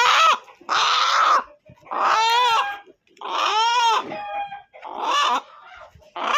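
Chicken squawking loudly, a series of about five harsh calls, each under a second long and rising then falling in pitch, roughly one a second.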